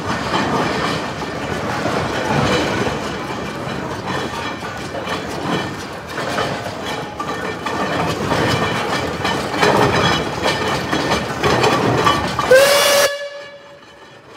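A 1921 Aveling and Porter steam roller runs under way with its engine working steadily. Near the end its steam whistle gives one short blast that rises and then holds one pitch, and the sound cuts off suddenly.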